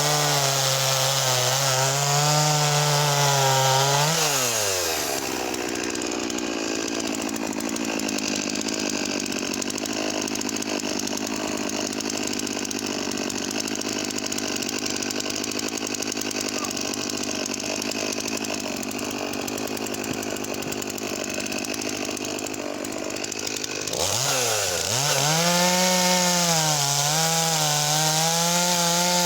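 Makita DCS4610 45cc two-stroke chainsaw running at high revs and cutting wood, its engine pitch wavering under load. About four seconds in the engine note falls away to a quieter, rougher sound without a clear pitch, and about twenty-four seconds in it revs up loudly again.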